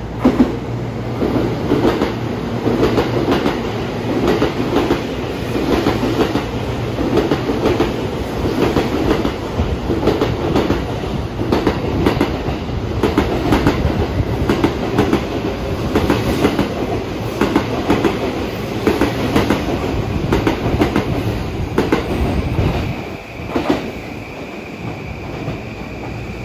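A 14-car 285 series sleeper electric train passing through a station without stopping, its wheels clattering rhythmically over the rail joints. The clatter dies away about 23 seconds in as the last car goes by, and a steady high tone sounds near the end.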